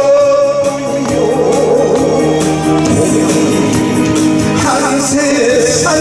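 A man sings a Korean trot song into a handheld microphone over an amplified recorded backing track with a steady beat. He holds one note at the start, then carries on with a wavering, vibrato-laden line.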